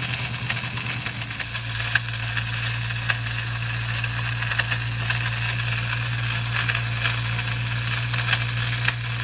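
Ford Mustang Bullitt's 4.6-litre V8 idling steadily in neutral, with a rattling, crackling mechanical noise under it. The noise is typical of a starter drive that is probably not fully disengaging and is dragging on the flywheel.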